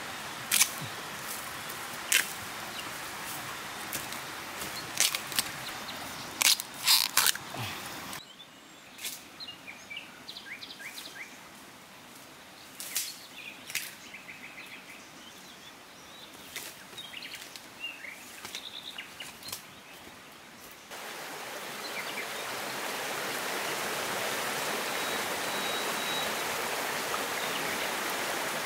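Forest ambience in three stretches. First several sharp knocks and clicks over a steady outdoor hiss, then a quieter stretch with small chirps and ticks. About two-thirds of the way through comes a steady rush of running water.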